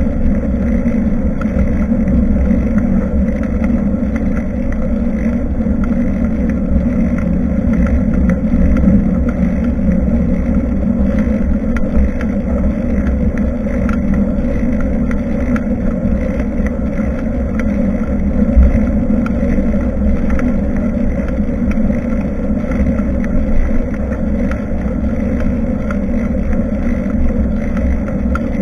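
Steady wind and road rumble on a bicycle-mounted action camera's microphone during a ride, with a few faint rattles.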